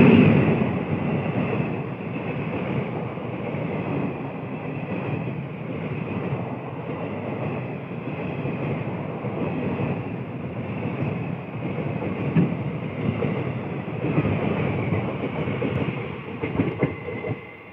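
Electric-hauled Indian passenger train passing at speed: a steady rush and clatter of coach wheels on the rails, loudest as the WAP-5 locomotive goes by. A few sharper clacks come near the end, and the sound falls away as the last coach passes.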